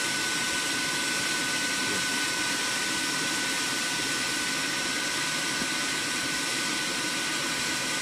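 Homemade HHO burner heater running with its blower at full speed: a steady rush of air with a constant high whine.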